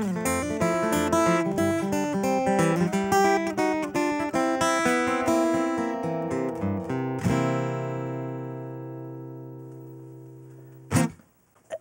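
Solo steel-string acoustic guitar playing a busy run of plucked notes, then ending on a final chord that rings and fades away over about three seconds.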